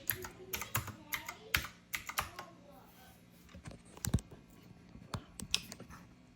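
Typewriter-style keyboard with round keycaps being typed on: irregular key clacks, a quick run of strokes in the first couple of seconds, then scattered single strokes.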